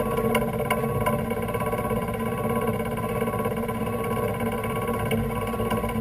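Kaltenbach structural-steel machine tool running steadily with no cut under way: an even mechanical hum with a few light clicks in the first second.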